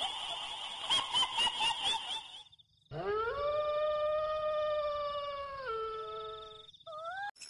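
A dog howling: one long howl that rises into a held note, drops lower near the end, then a short rising cry. Before it, a high, wavering pulsing sound cuts off about two and a half seconds in.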